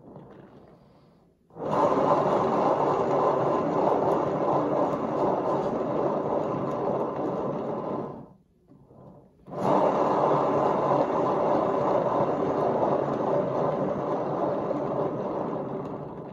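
HomeRight paint turntable (lazy Susan) spun twice, each spin a steady rolling rumble of about six seconds. The second spin starts about a second and a half after the first stops and fades out near the end.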